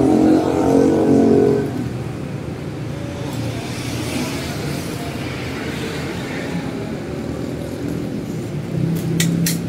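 A motor vehicle's engine passing, loudest in the first second and a half, then a steady background hum of traffic; a few sharp clicks near the end.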